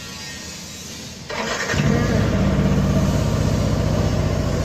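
Honda Click scooter's single-cylinder engine starting a little over a second in, then running at a steady idle.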